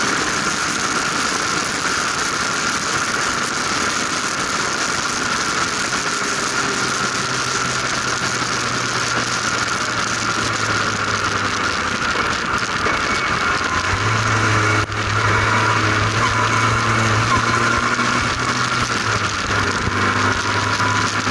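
Formula RP1 single-seater race car's engine running steadily at speed on track, heard from the open cockpit, with a brief drop in sound about fifteen seconds in.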